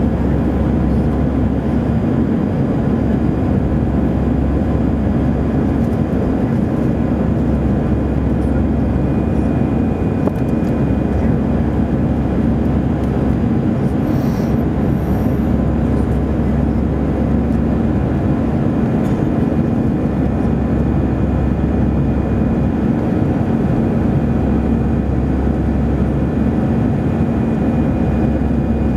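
Airbus A319 in its climb after take-off, heard inside the cabin over the wing: engines and airflow making a steady rushing noise with a constant low hum.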